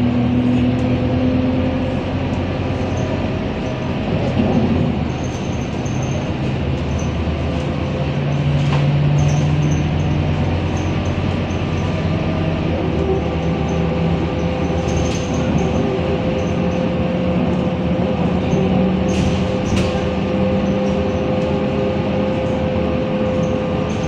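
Interior drone of a Scania K230UB bus on the move: the five-cylinder diesel engine and drivetrain run under a steady wash of road and tyre noise. The engine note steps up in pitch a few times as the bus gathers speed, and there are a few light rattles.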